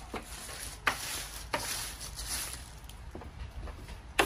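Clear plastic stretch wrap rustling and crinkling as a wrapped folding plastic table is handled, with a few sharp clicks, the loudest near the end.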